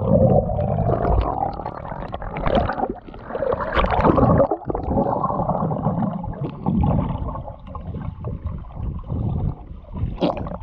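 Muffled underwater sound of a swimmer moving close by: water sloshing and gurgling with bubbles breathed out, swelling and fading, loudest about four seconds in.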